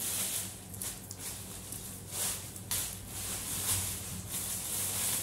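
Thin plastic carrier bags rustling and crinkling in uneven surges as hands rummage through them.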